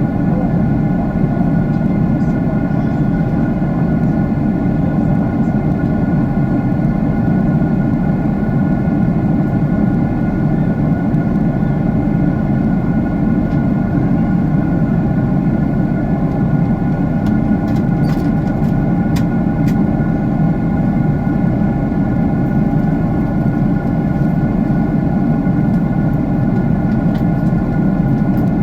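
Jet airliner cabin noise: the engines and airflow make a steady, even rush that is heaviest in the low-middle range, with a few faint steady tones riding above it.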